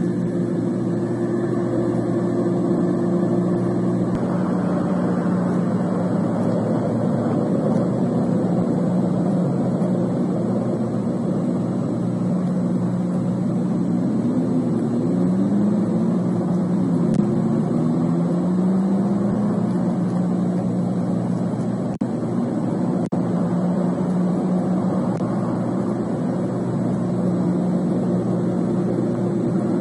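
Steady low mechanical drone with a constant hum. About halfway through, an engine-like tone rises and falls in pitch for several seconds.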